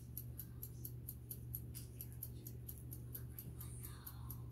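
Light rustling of gloved fingers wiping a PICC line hub with an alcohol pad, over a faint, even, rapid ticking of about four or five ticks a second and a low steady hum.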